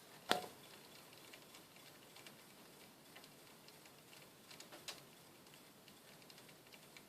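Faint, irregular light ticking, with one sharp click about a third of a second in and a few louder clicks near five seconds.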